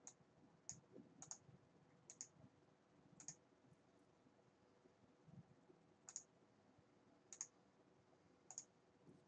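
Faint, sharp computer mouse clicks, about nine of them at irregular intervals with a pause in the middle, over quiet room tone.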